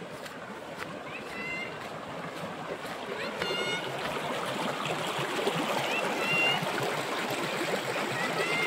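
Shallow river rushing and splashing over rocks, growing louder as the water tumbles through a stony riffle. A few short high calls sound above it, about four times.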